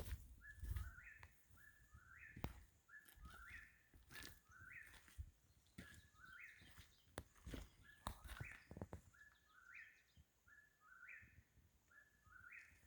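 A night-calling bird repeating a short, stepped, rising call about once a second, faint and steady in rhythm, with a few light clicks and knocks of handling between calls.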